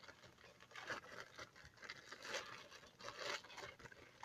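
Faint, irregular crinkling and rustling from slime packaging being handled.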